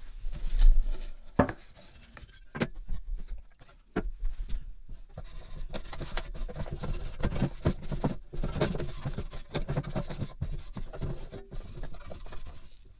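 Cloth rubbing over the primed pressed-steel bed of a Tonka dump truck, wiping it down with panel wipe to degrease it before painting. A few sharp knocks in the first few seconds, then steady, uneven rubbing and scrubbing.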